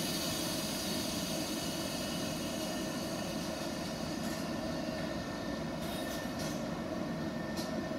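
ICE high-speed train standing at the platform with its on-board equipment running: a steady blower-like roar, with a hiss over it for about the first half.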